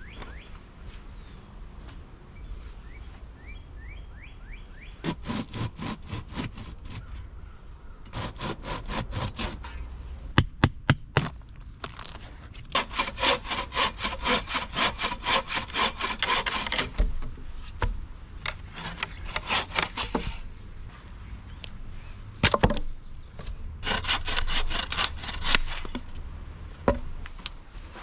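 Hand-sawing a log with a wooden frame saw: several runs of quick, even back-and-forth strokes, with a few sharp wooden knocks between them.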